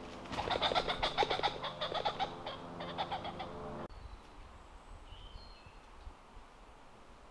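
Wild birds calling and singing, busy and dense for the first few seconds, then an abrupt cut to a quieter stretch with only a few faint high chirps.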